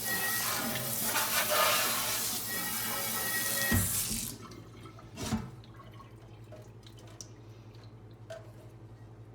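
Tap water running into a sink, shut off about four seconds in, with two dull knocks around the shut-off.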